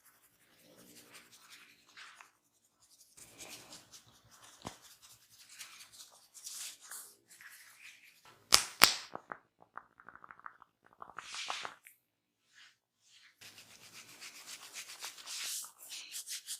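Hands rubbing and massaging a person's head and hair in irregular strokes, with two sharp clicks in quick succession a little past halfway.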